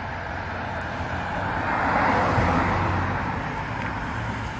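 Ford Mustang GT's V8 driving past, its engine and tyre sound swelling as it approaches, loudest about two seconds in, then fading as it moves away.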